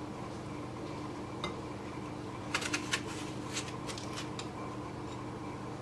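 A few light clicks and clinks of a knife against a plate while an apple is peeled by hand, over a steady hum.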